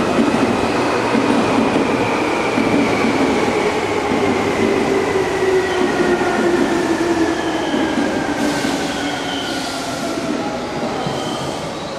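Seibu 30000-series electric train pulling in and slowing: the whine of its inverter-driven traction motors falls steadily in pitch as it brakes, over the rumble of wheels on rail. Brief high squeals and hisses come in about two-thirds of the way through as it runs over the points.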